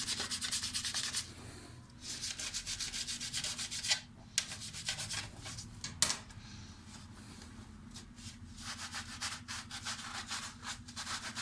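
Hand scrubbing of a dishwasher part in fast, rhythmic back-and-forth strokes, working at rust stains. The scrubbing pauses for a few seconds in the middle, where there are two sharp knocks, then starts again.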